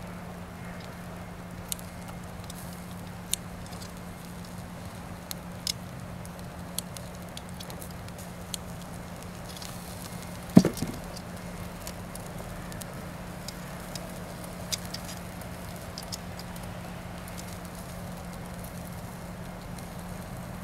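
Beef grilling on a wire-mesh grill over charcoal: a steady sizzle with scattered sharp pops and crackles, over a low steady hum. One louder knock comes about halfway through.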